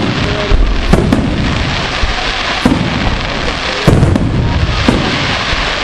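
Daytime fireworks going off: five sharp bangs at uneven intervals over a continuous crackling din.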